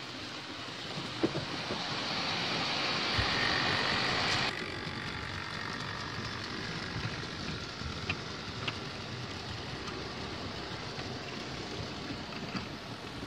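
OO gauge model train running on the track: the locomotive's electric motor whirring and the wheels rumbling over the rails, with occasional light clicks at the rail joints. It grows louder over the first few seconds, then drops sharply to a steadier, quieter run.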